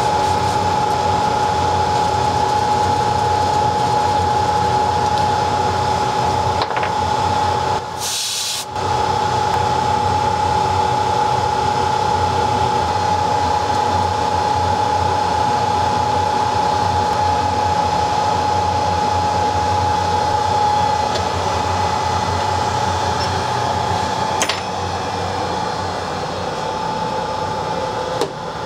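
Steady whir of an electric blower with a constant high whine. It breaks off briefly about eight seconds in, with a short hiss, and runs a little quieter after a click near the end.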